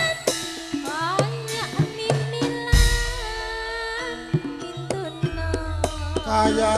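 Javanese tayub music played through a PA: a female singer's wavering, gliding vocal line over gamelan with frequent hand-drum (kendang) strokes. A deep, sustained low tone comes in about five seconds in.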